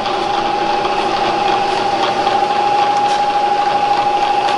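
Bridgeport Series I mill's 2-horsepower variable-speed spindle head running steadily, with an even whine.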